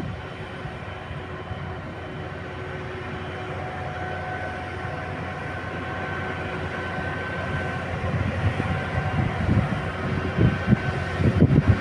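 Heavy earthmoving machinery running: a steady diesel drone with a faint high whine, swelling into louder, uneven low rumbling in the last few seconds.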